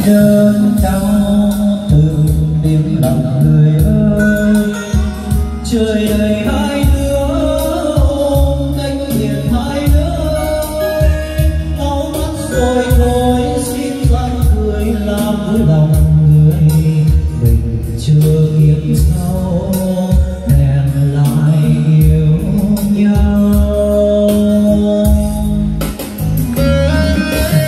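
A song with singing, played loud over a PA sound system fed from a Dynacord CMS 1600 mixer.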